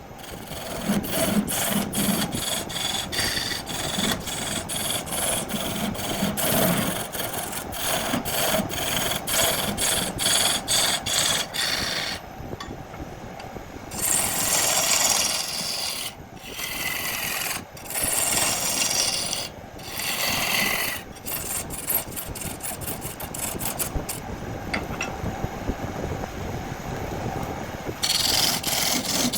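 Rasping and rubbing of an abrasive or tool working a wooden workpiece, choppy with many abrupt breaks. About halfway through come a few louder, hissier stretches that slide down in pitch.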